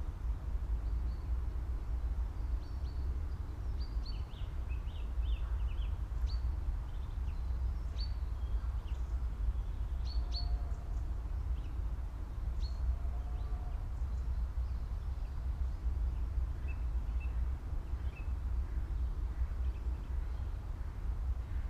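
Quiet farm ambience: a steady low rumble with small birds chirping on and off, most busily in the first half.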